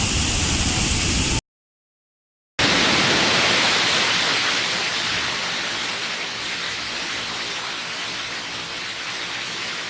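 A waterfall's steady rush of falling water. About a second and a half in it drops to dead silence for about a second, then resumes a little brighter and slowly fades.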